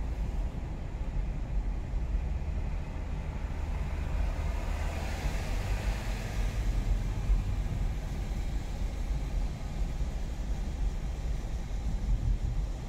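Road noise of a moving car, heard from inside the cabin: a steady low rumble, with a hiss that swells and fades about five to seven seconds in.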